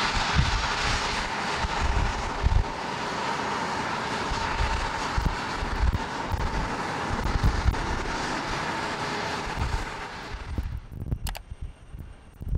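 Boeing 737 MAX jet engines at takeoff power as the airliner climbs out, a steady rushing noise with a steady whine, while wind buffets the microphone in low gusts. The engine noise cuts off suddenly about ten seconds in, leaving only wind buffeting and a few clicks.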